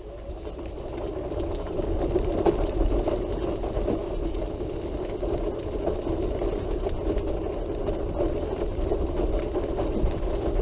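Quickie Q700 mid-wheel-drive powered wheelchair driving along a path: a steady hum from its drive motors and wheels, building up over the first couple of seconds and then holding, slightly noisy on this surface.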